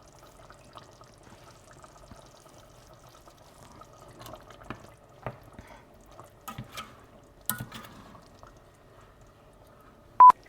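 Curry simmering and bubbling in a pot, with a few light clicks and knocks of a spoon as sugar is stirred in. A single short, loud beep sounds near the end.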